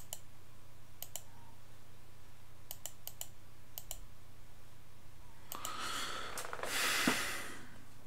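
Computer mouse clicking on drop-down menus: a handful of sharp clicks, several in quick pairs, during the first four seconds. Then a longer breathy rush of noise from about five and a half to seven seconds, the loudest sound here.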